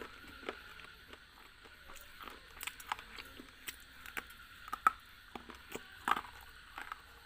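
Close-miked biting and chewing of a hard, brittle pinkish-brown bar: sharp cracks and crunches at irregular intervals, the loudest snaps about five and six seconds in.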